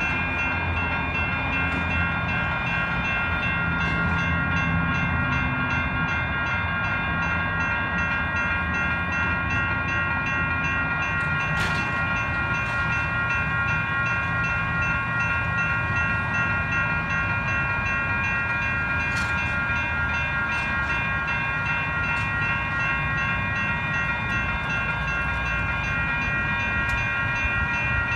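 Railroad crossing warning bells ringing steadily: several electronic crossing bells (NEG, WCH and General Signals) sounding together in a continuous, overlapping ding, the sign that the crossing is activated for an approaching train. A low rumble runs underneath and fades after about twelve seconds.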